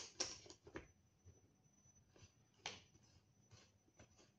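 Faint clicks and light knocks from the hard parts of a helmet night vision mount (J-arm and Rhino arm) being handled as a PVS-14 monocular is fitted to it, the sharpest at the very start and another near the middle. A faint steady high whine runs underneath from about a second in.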